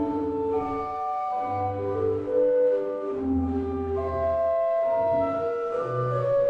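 1909 Schlag & Söhne pipe organ playing a slow trio: two melodic lines of held notes on the manuals over separate sustained bass notes in the pedals.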